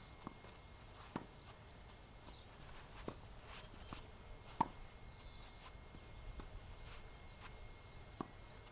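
Tennis ball being hit back and forth in a rally: short sharp pops of the ball off the rackets and its bounces on the synthetic-grass court, about one a second at irregular spacing, the loudest about four and a half seconds in.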